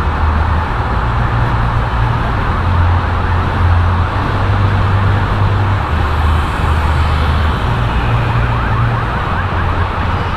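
Background music with a bass line stepping between notes, and repeated short rising tones over the second half.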